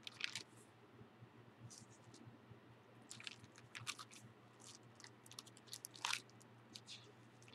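Faint, scattered crackles and rustles of an old Oxford Bible's thin pages being handled and turned.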